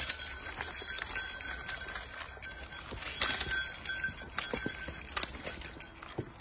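Irregular clicking and clattering steps of dogs in wheelchairs and a walker moving over a rocky, muddy trail, with a light metallic jingle.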